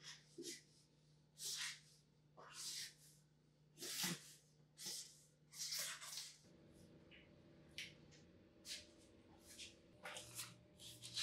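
Flattened cardboard mailing box being handled: a series of short scraping, rustling sounds, irregular and roughly one a second, over a faint room hum.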